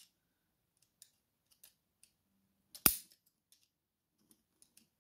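Faint metal ticks of a tool working at the retaining C-clip on the back of a lock cylinder, then one sharp metallic snap a little under three seconds in.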